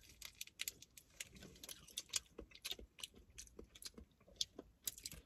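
Faint chewing of a soft sour fruit candy strip: irregular small clicks and smacks of the mouth working the candy.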